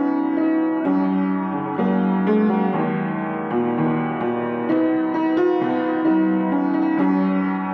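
Piano playing a slow melody over held chords, with the notes changing about once a second.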